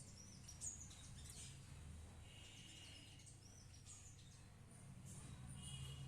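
Small birds chirping faintly: short high chirps and whistles scattered throughout, with a brief buzzy trill about two seconds in and again near the end, over a low steady hum.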